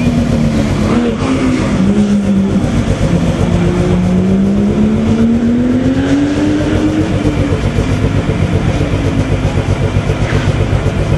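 Several rally car engines running at low speed in a slow-moving queue. One engine note climbs gradually over a few seconds and then eases back, under a steady mix of other engines.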